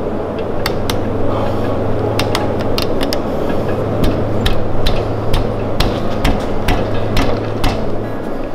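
Rubber handlebar grip being pushed and twisted onto a mini bike's steel handlebar, with many irregular clicks and knocks over a steady low hum and rushing noise.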